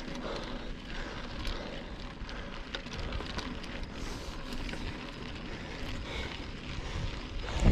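Steady rush of wind on the microphone and bicycle tyre noise while cycling, with a brief louder bump near the end.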